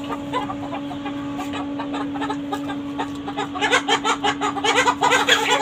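A hen clucking in agitated alarm at a mongoose by its cage: short calls repeated fast, growing louder and busier about three and a half seconds in.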